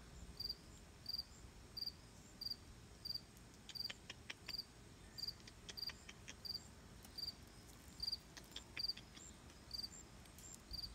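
Steady high chirping, about two short chirps a second, with a scatter of faint clicks in the middle.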